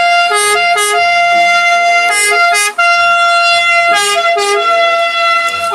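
Electronic ambulance-siren sound effect: a steady electronic tone broken about every two seconds by a short figure of shifting notes, repeating.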